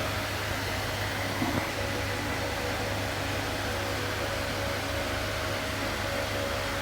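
Steady mechanical hum with a few constant tones, like a running fan or motor, with one short knock about a second and a half in.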